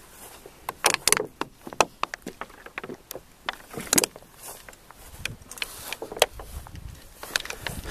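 Footsteps through tall dry grass and brush: irregular crunches and swishes of stems against legs and feet, with a low rumble in the second half.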